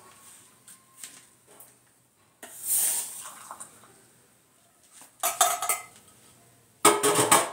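Kitchen utensils and dishes clattering and clinking in three short bouts, the last the loudest, with several quick knocks.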